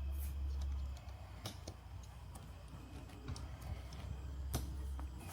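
Scattered sharp clicks of plastic tent clips being snapped onto tent poles, the clearest about one and a half seconds in and again near the end, over a low rumble.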